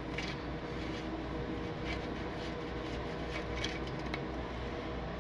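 A few faint ticks of a T-handle Allen wrench turning out a motorcycle side-cover screw, over a steady low hum of room tone.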